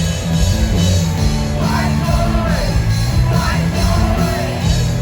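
Loud rock music, a full band with a steady low bass, and a singing voice from about one and a half seconds in.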